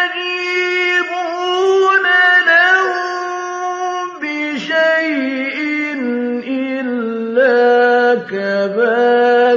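A man's solo voice reciting the Quran in melodic tajweed style, holding long ornamented notes with gliding turns. The pitch steps down to a lower register about four seconds in.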